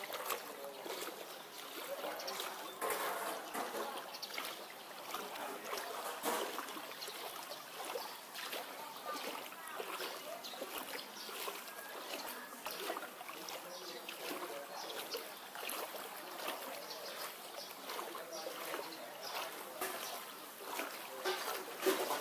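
Floodwater splashing and sloshing in many small irregular strokes, with voices faint in the background.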